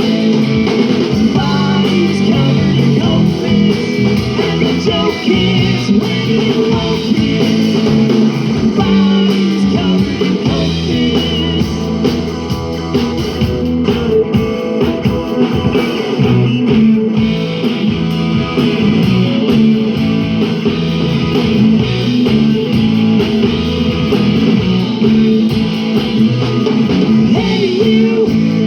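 Live rock band playing: electric guitar and drums with a singing voice, amplified through a PA.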